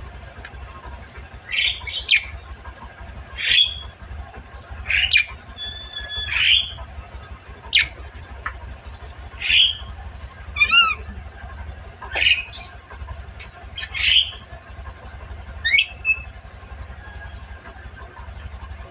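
Javan myna giving a string of short, harsh squawks and whistles, one every second or two, with a quick rippling run of notes about halfway through, over a steady low hum.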